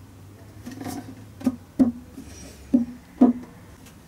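Four hollow wooden knocks on a violin's body, each with a brief low ring from the body, as the glued neck is fitted into its joint; softer wood rubbing comes just before them.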